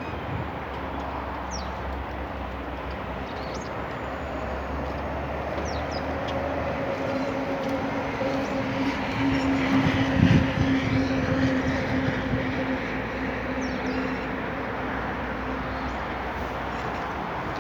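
Vehicle noise: a steady rumble with a humming tone that swells to its loudest about ten seconds in, then fades back.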